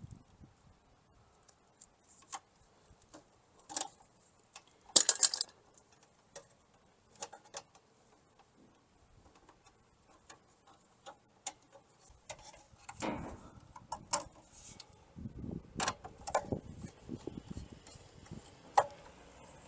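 Scattered small clicks and taps of hand tools and wire being worked in an electrical breaker panel, with a louder clatter about five seconds in and handling and scraping noise in the second half.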